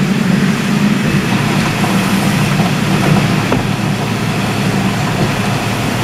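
Typhoon wind and rain heard through a window: a loud, steady rush with a strong low rumble and no letup.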